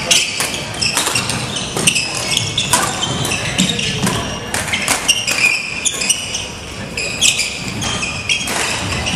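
Badminton rally: rackets striking the shuttlecock in quick, irregular exchanges and court shoes squeaking on a hardwood gym floor, ringing in a large hall.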